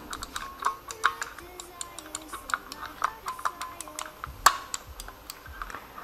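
Lever-type microswitches (limit switches) clicking over and over as the joystick levers are pushed against them, with many small irregular clicks and one louder click about four and a half seconds in.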